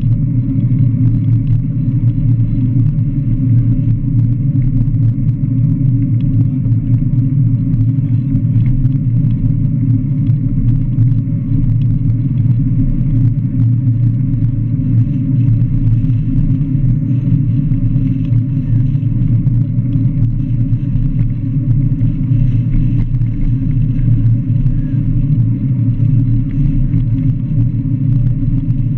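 Steady low rumble of wind and road noise on the camera microphone while riding a recumbent cycle along a highway shoulder.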